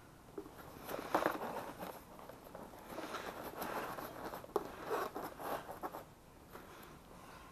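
Handling noise: rustling and clicking of plastic and fabric fishing gear being moved about close to the microphone, with sharp clicks about a second in and again past four seconds. It dies down near the end.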